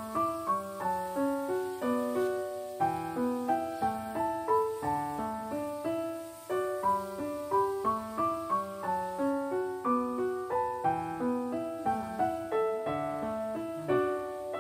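Background music: a gentle piano melody, notes struck one after another at an even, unhurried pace.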